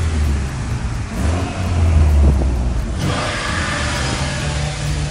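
A car engine running with a deep low hum that changes character about three seconds in.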